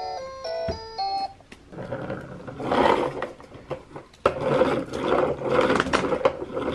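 A toy dinosaur truck's electronic jingle ends about a second in, followed by the toy's recorded dinosaur roar sound effects through its small speaker. A sharp click is heard a little past the middle.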